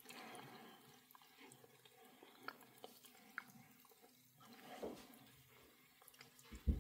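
Faint eating sounds: wet mouth clicks and quiet chewing of MRE cheese spread with bacon, with a soft knock about five seconds in and another near the end.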